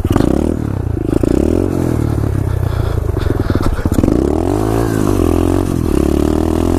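2015 SSR 125cc pit bike's single-cylinder four-stroke engine being ridden, the revs rising and falling several times as the throttle is opened and eased off.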